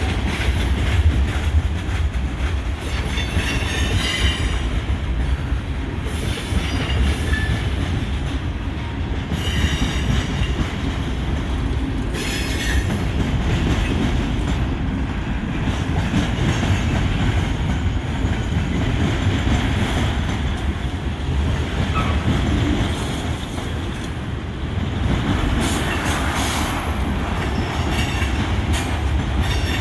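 Canadian Pacific freight train rolling slowly past: a steady rumble of cars on the rails, with short, scattered high-pitched wheel squeals.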